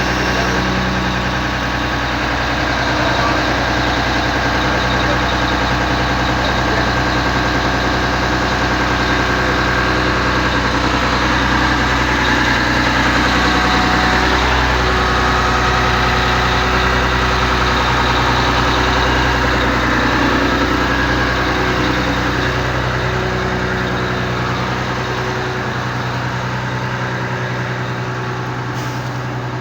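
Crane's engine running steadily at idle, getting a little quieter near the end.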